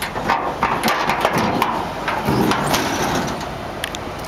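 Steel pickup tailgate of a 1981 Ford F100 being unlatched and lowered: metal clicks and rattles from the latch, then a heavier clatter a little after two seconds in as it drops open.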